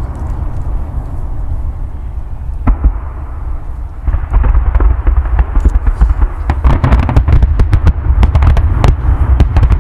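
Fireworks going off over a steady low rumble: one sharp bang about a third of the way in, then from about halfway a rapid, dense run of crackling bangs.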